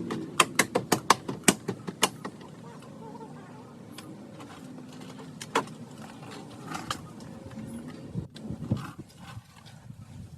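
A series of sharp clicks and knocks: a quick run of about eight in the first two seconds, then scattered ones, with faint voices underneath.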